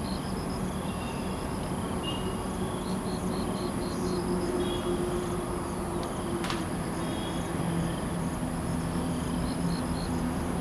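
Steady high-pitched insect drone with groups of short repeated chirps, over a low steady hum.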